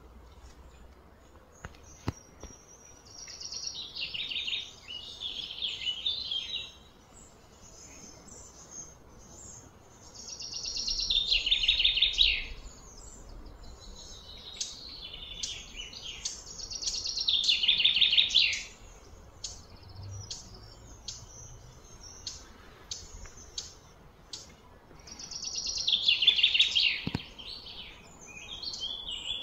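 A bird singing a loud, high trilled phrase a couple of seconds long that slides slightly down in pitch. It repeats about every seven seconds, with faint chirps in between.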